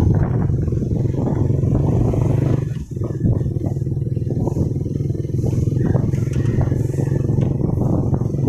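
Vehicle engine running steadily close by, with a brief drop in loudness about three seconds in.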